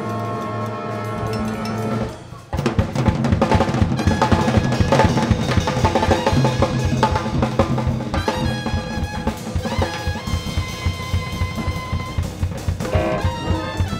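Band music: a held low chord, then about two and a half seconds in a busy drum kit comes in with fast snare and bass drum hits under pitched instrumental notes.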